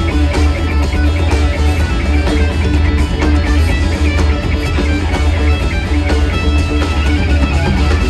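Live rock band playing an instrumental passage: guitar lines over a heavy bass and drums, with a steady beat.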